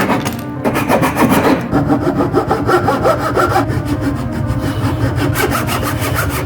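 Hand saw cutting through wood in quick, even back-and-forth strokes.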